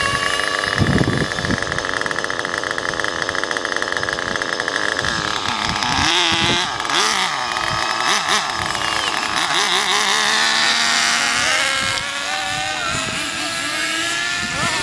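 Nitro RC car's small glow-fuel engine running at high revs, a high-pitched whine. It holds a steady pitch for the first few seconds, then rises and falls as the throttle is worked.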